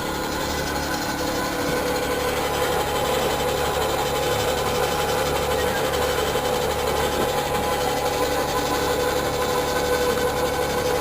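Motor of a cable-pulling machine running steadily with a constant hum, drawing a heavy power cable through a dock raceway.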